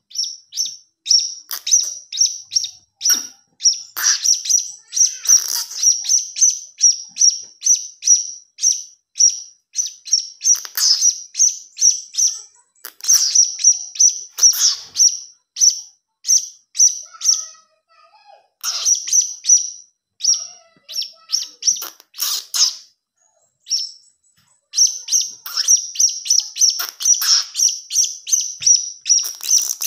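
Young blue-crowned hanging parrot (serindit) giving a rapid series of short, high-pitched chirps, about two to three a second, broken by two brief pauses partway through. These are the begging calls used as a lure sound to attract serindits.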